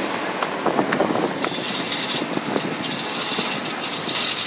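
Busy city street noise: a steady traffic hiss and rumble with scattered clicks. A brighter high hiss with faint thin whistling tones joins about a second and a half in.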